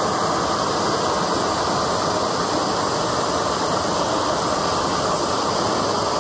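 Large propane torch burning steadily at full flame, a continuous loud rushing hiss, its flame played against a cement board panel.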